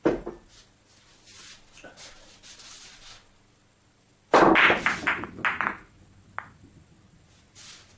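Break shot in Russian pyramid billiards: the cue strikes the cue ball, which smashes into the rack of white balls about four seconds in, giving a dense clatter of ball-on-ball clicks and cushion knocks for about a second and a half, then one lone click as two balls meet. A single sharp knock sounds at the very start.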